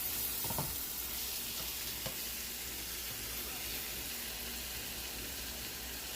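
Shrimp and stir-fry vegetables sizzling in a hot pan with a steady hiss, with a few light knocks in the first couple of seconds.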